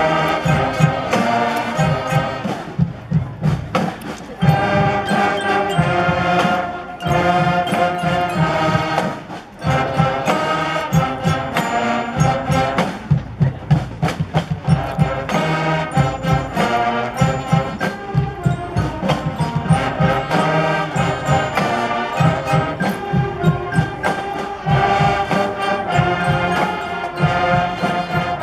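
Large combined school band playing a piece: massed brass and woodwinds over a percussion section with mallet instruments, keeping a steady beat.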